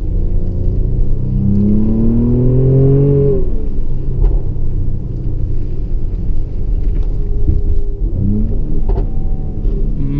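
Mercedes-AMG GLE 43's twin-turbo V6 heard from inside the cabin, climbing in revs under acceleration for about two seconds, then dropping sharply as the revs fall. A few sharp pops follow, and the revs climb again near the end.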